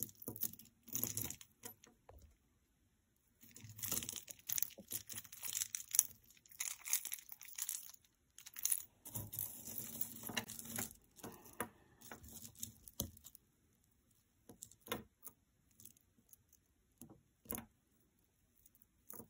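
Hands rummaging through a pile of mixed costume jewelry: chains and beads clinking and rustling in irregular spurts, thinning out to a few scattered small clicks near the end.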